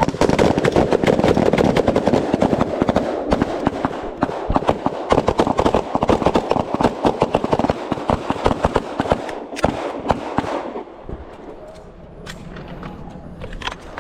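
Rapid gunfire from several shooters firing rifles and pistols, the shots overlapping densely for about ten seconds, then dropping to a few scattered shots.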